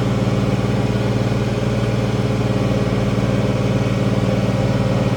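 International 1566 tractor's turbocharged six-cylinder diesel running at a steady speed, a constant drone with no change in pitch.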